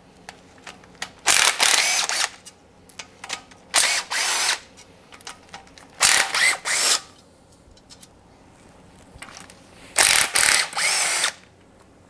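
Impact gun backing out oil pump bolts in four bursts of about a second each, with light clicks between. The gun works hard at the start of the bolts as it breaks through the red Loctite on their threads.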